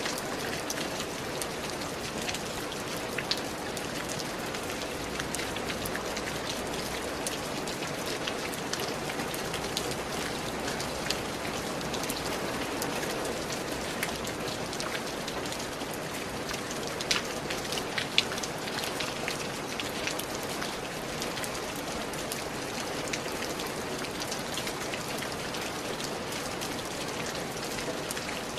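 Steady rain falling and pattering on a surface, with many scattered drop impacts and now and then a louder single drop.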